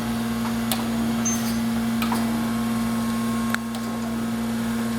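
Acer AGS-1020 surface grinder running: a steady hum from its spindle and hydraulic drive, with a few faint clicks as the table feeds in and out.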